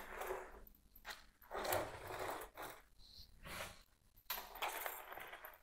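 Intermittent rustling and light handling noises as a potted houseplant is moved and set down on a shelf, in a few short, irregular bursts.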